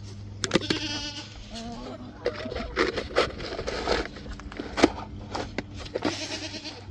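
Goats bleating, with one wavering call about a second in and shorter calls after it, over scattered knocks and rustling.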